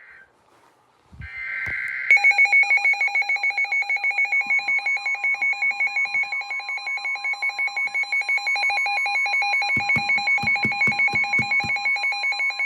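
The last buzzy burst of an Emergency Alert System (SAME) digital header, then a rapidly pulsing alarm tone. About four and a half seconds in, the steady 1050 Hz NOAA Weather Radio attention tone joins it, and both cut off just before the end, signalling that a warning is about to be read. A run of low knocks sounds near the end.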